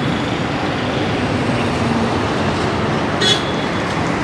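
Steady road traffic noise: an even rush of vehicles on a busy road with a faint engine hum, and one short sharp sound about three seconds in.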